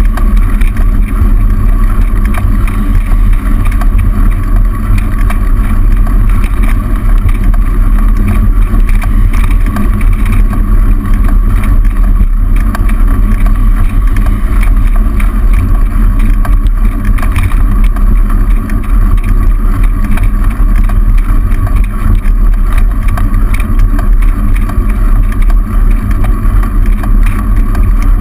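Steady, loud low rumble of wind and road vibration on a bicycle-mounted camera while riding, mixed with the noise of car traffic in the lanes alongside.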